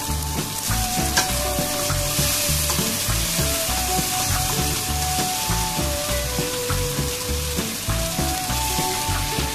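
Bell pepper strips sizzling in hot oil in a nonstick wok and being stirred with a spatula, a steady hiss throughout. Background music with a melody and bass runs under it.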